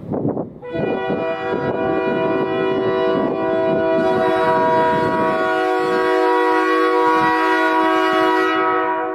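A train's locomotive horn sounds one long blast of about eight seconds: a steady chord of several pitches that starts about a second in and stops near the end, then echoes off the surrounding mountainsides as it trails away. The train's running rumble sits underneath.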